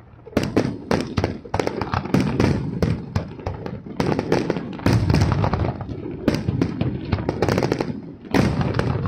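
Aerial fireworks display: a rapid barrage of shell bursts and crackling reports, with heavier booms about five seconds in and again near the end.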